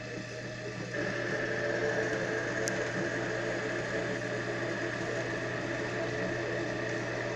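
Bench drill press running steadily with a motor hum; about a second in it grows louder with a higher whine as the bit works, drilling holes in wood.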